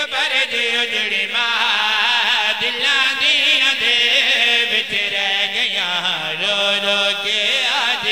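A man's voice through a microphone chanting masaib, the lament of a Shia majlis, in long drawn-out notes with a heavy wavering vibrato and no clear words.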